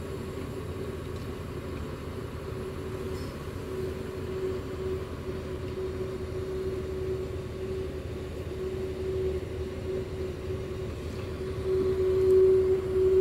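Mercedes-Benz OH 1626 coach idling while its air system lets air out with its distinctive steady tone over the engine's low rumble, the tone growing louder near the end.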